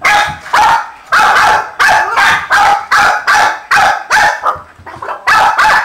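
A Boston terrier barking rapidly and repeatedly, about two sharp barks a second, with a short pause near the end.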